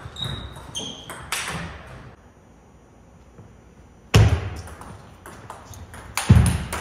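Table tennis rally: the celluloid ball clicking off rubber bats and the table in quick succession, with two loud, sharp hits in the second half that ring on in a reverberant hall.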